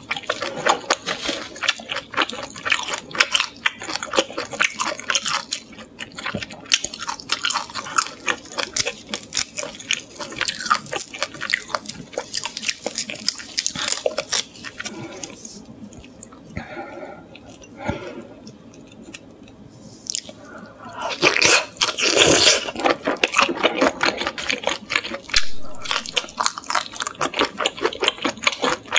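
Close-up chewing of salt-grilled shrimp: a dense run of wet mouth clicks and crunches, quieter for a few seconds past the middle, then a louder burst a little after two-thirds of the way through.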